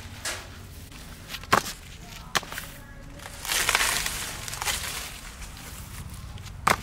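Sweet corn being picked and handled: a few sharp cracks, the loudest near the end, and a burst of rustling from the stalks, leaves and husks about halfway through.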